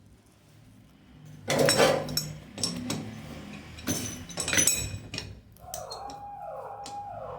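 Metal knocking and clinking of tools and fittings being handled while a kitchen sink mixer tap is fitted, with several sharp strikes. Near the end, a repeating pattern of falling tones sounds over a steady tone.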